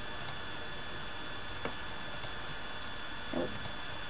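Steady microphone hiss with a faint, thin electrical whine, and a faint click about one and a half seconds in.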